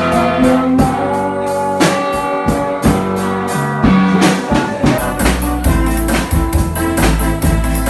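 Live band music: electric guitar, electric bass and drum kit playing a steady beat. The bass becomes much heavier from about five seconds in.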